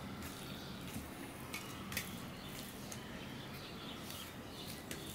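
A hand mixing rice and okra in mustard sauce on a steel plate: soft squishing, with a few light clicks of fingers against the plate.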